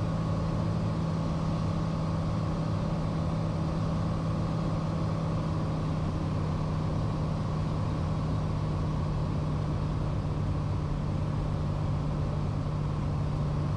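Steady drone of a Cessna Turbo 182's turbocharged six-cylinder Lycoming engine and propeller heard inside the cabin in flight: an even low hum over constant noise, with no change in power.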